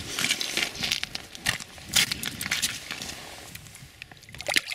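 Irregular crunching, scuffing and sharp clicks on snow-covered ice from movement and handling around an ice-fishing hole, with a louder knock about two seconds in and another near the end.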